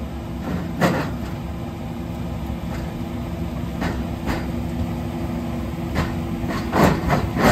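Sharp metal knocks and clanks from a rooftop HVAC unit's heat exchanger being pried and pulled loose inside its sheet-metal cabinet, one about a second in, a couple mid-way and a louder cluster near the end, over a steady low machine hum.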